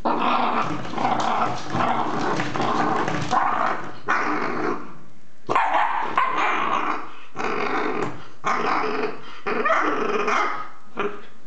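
English Bull Terrier puppy growling and barking in repeated bursts as it bites and paws at a coil-spring door stop, with a few sharp clicks from the metal spring being knocked. The noise breaks off briefly about halfway through.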